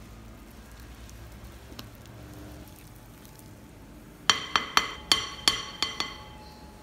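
A wire whisk tapped about seven times in quick succession against a glass mixing bowl, each clink ringing briefly, to knock thick chocolate brownie batter off the wires. Before that, faint stirring of the batter.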